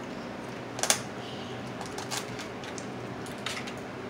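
Cooked blue crab shells cracking and clicking as they are picked apart by hand, with one sharp, louder crack about a second in and a few lighter clicks after.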